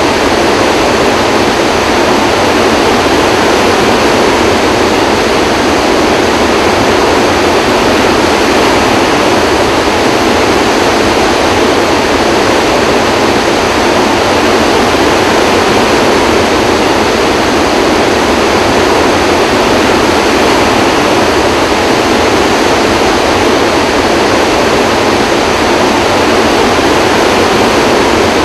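Floodwater thundering out of Kaw Dam's eight open spillway gates into the churning basin below, releasing about 44,000 cubic feet per second. It is a loud, steady rush of water that never lets up.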